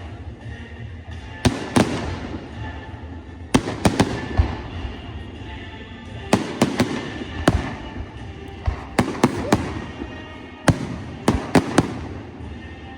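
Fireworks shells bursting in irregular clusters of sharp bangs, about eighteen of them, each with a brief echo, over music playing underneath.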